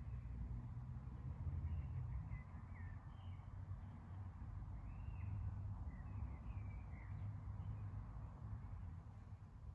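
Faint outdoor evening ambience: scattered short bird chirps over a steady low rumble.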